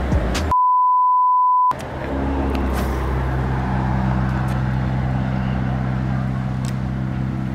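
A single steady high-pitched beep about a second long, with all other sound cut out beneath it: a censor bleep. After it comes a steady low engine hum from nearby road traffic.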